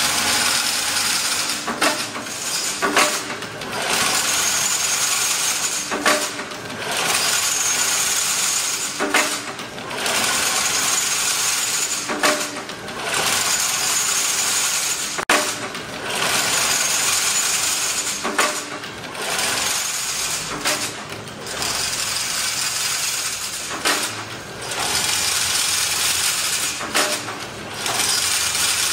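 Automatic chain-link fence weaving machine running: a loud metallic clatter in runs of two to three seconds, each broken by a short pause with sharp clacks, the cycle repeating over and over.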